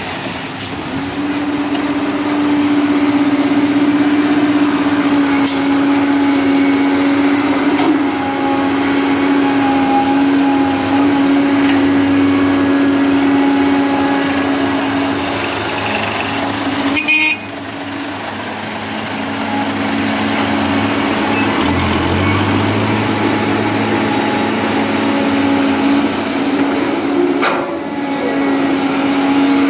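Heavy diesel machinery, a backhoe excavator and dump trucks, running steadily with a strong droning hum. The sound drops off suddenly about seventeen seconds in, comes back up a couple of seconds later, and a deeper engine note rises in a few seconds after that.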